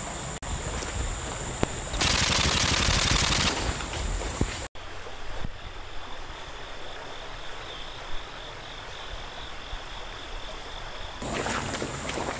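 A burst of rapid automatic gunfire lasting about a second and a half, set over steady background hiss that changes abruptly at edit cuts.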